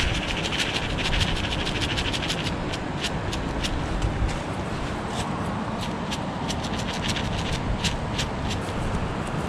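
Table knife scraping a spread onto a slice of bread: quick clicks and scratches, close together for the first couple of seconds, then scattered, over a steady rushing background.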